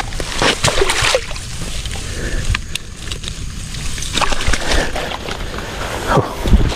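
Water splashing and sloshing in irregular surges, loudest about a second in and again near the end.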